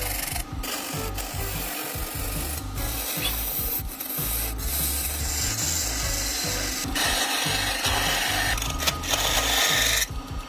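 Hand turning tool cutting into a large wooden workpiece spinning on a big wood lathe: a steady scraping, rasping hiss of steel shaving the wood, broken by a few brief gaps and cutting off abruptly near the end.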